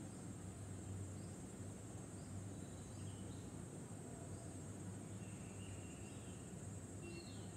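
Outdoor ambience: a steady high-pitched insect drone with faint short falling bird chirps about once a second, over a low hum.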